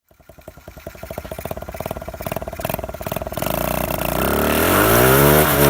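Mini bike's small engine running and revving up, getting steadily louder, its pitch rising from about three seconds in.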